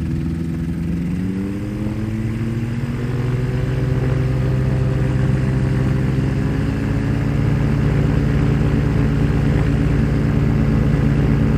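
The Rotax 582 two-stroke engine of a Spectrum Beaver ultralight, turning a two-blade propeller, throttling up with its pitch rising over the first few seconds, then running steady at high power as the plane accelerates on a high-speed taxi run.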